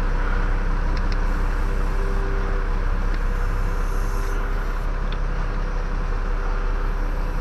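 A steady mechanical drone with a few faint clicks.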